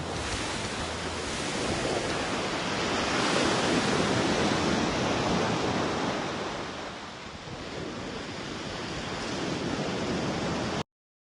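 Ocean surf: waves washing in as an even rushing noise that swells to its loudest about four seconds in, ebbs, swells again and cuts off suddenly near the end.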